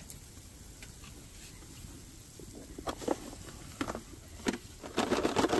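Scattered short rustles and clicks of cookies and their packaging being handled, sparse at first and busiest near the end.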